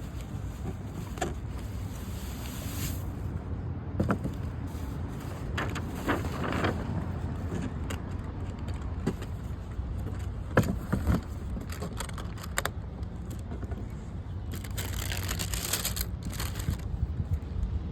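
Handling noises from unboxing a pair of sneakers: scattered clicks, knocks and short rustles, busiest near the end, over a steady low rumble.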